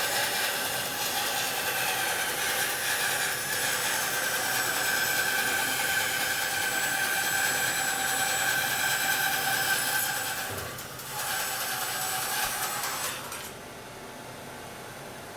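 Axminster bandsaw with a 3 TPI blade ripping through a piece of wet ash, a steady cutting sound with two held tones and a brief dip about ten and a half seconds in. About thirteen seconds in the cut ends and only the saw's quieter running hum remains. The saw cuts smoothly, with its wheel tyres freshly crowned.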